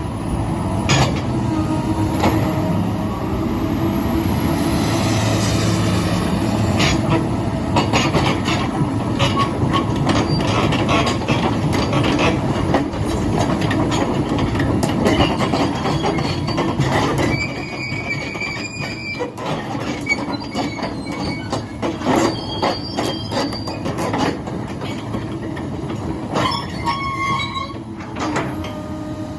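Excavator working, with the steady hum of its engine, metal clanking and knocking, and high squeals of steel rubbing on steel. A little over halfway through the engine hum drops and the squeals stand out more.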